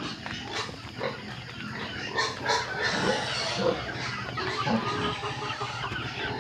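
Farm animals calling, with short, overlapping calls coming irregularly over a steady low hum.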